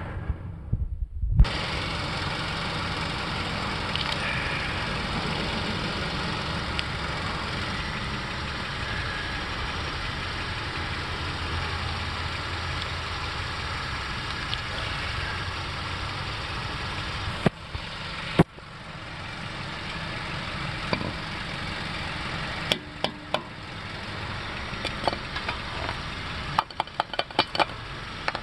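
2006–2011 Honda Civic running, a steady engine and road noise that starts about a second and a half in and dips briefly in the middle. Near the end comes a run of sharp clicks.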